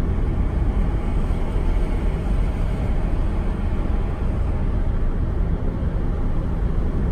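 Steady low rumble of a car driving at speed, tyre and engine noise heard from inside the car, even and unchanging.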